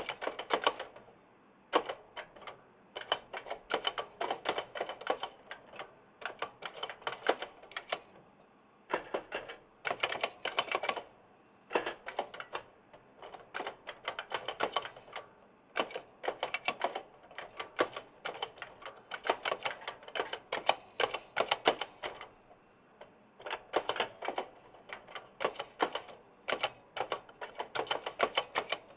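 Typing on a giant mechanical keyboard with Kailh blue clicky switches: fast runs of sharp clicks in bursts, with short pauses between them, and a springy ring from the switches.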